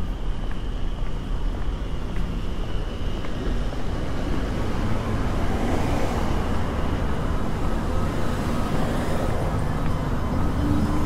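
City street traffic: a steady rumble of cars going by, with one vehicle passing close about halfway through.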